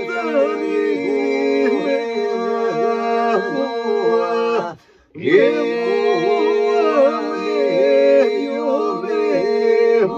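Men singing unaccompanied: a steady held drone under a wavering, ornamented lead melody, in two long phrases with a short breath-break about halfway through.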